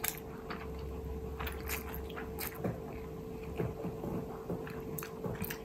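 Close-miked chewing of a mouthful of fried instant noodles with egg (Indomie Mi Goreng): soft, irregular wet mouth clicks and smacks, with a faint steady hum underneath.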